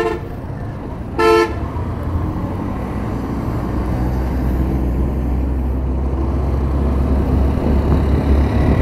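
A vehicle horn gives a short honk about a second in, the tail of another honk just ending as it starts. Under it runs the steady low drone of a Hero Hunk motorcycle's engine and wind noise while riding, growing gradually louder as the bike picks up speed.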